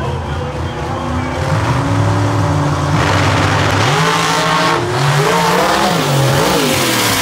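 Two drag-race cars, one a Mustang, sit rumbling at the starting line, then launch about three seconds in and run down the strip at full throttle, much louder. Their engine pitch rises and falls as they race past.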